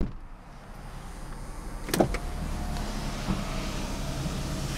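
Power window motor of a 1999 Mercedes-Benz E320 raising the driver's door glass. It starts with a switch click, then runs steadily, with the engine idling underneath.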